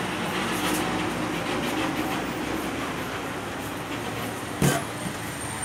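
Steady rumble of passing traffic, with one sharp knock near the end.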